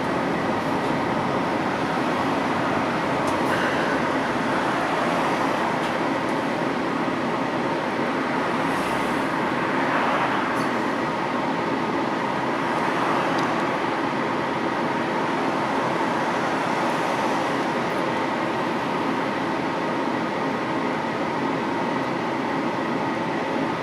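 Cabin noise inside a Düsseldorf Stadtbahn light-rail car running along the line: a steady rumble of wheels on rails with an even hum under it. The sound swells briefly about ten seconds in.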